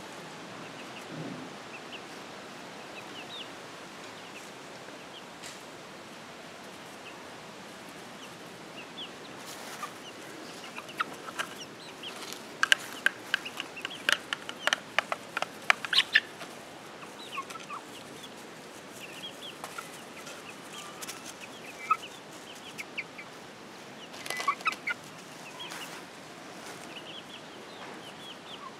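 Chickens clucking and chirping while they feed. In the middle comes a quick run of sharp taps as beaks peck feed off a plate, with another short cluster of taps near the end.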